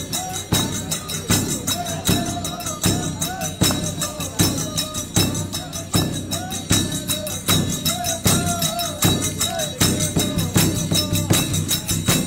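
Folk singing over a steady beat of drum strikes with jingling tambourine-like percussion, the voice wavering above the rhythm.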